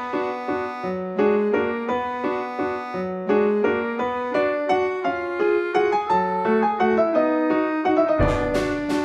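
Background music: a light keyboard melody of short, quick notes, with louder, deeper hits coming in near the end.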